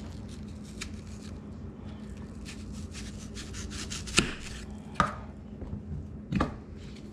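Kitchen knife cutting a peeled onion on a bamboo cutting board: small crisp clicks as the blade works through the onion, with three sharper knocks of the blade striking the board in the second half.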